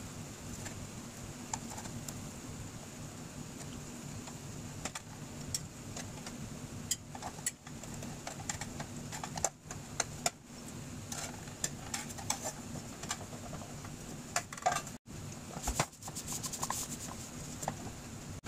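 Spatula clicking and scraping against a nonstick frying pan as small pancakes are lifted out, in scattered sharp knocks over a steady low hum.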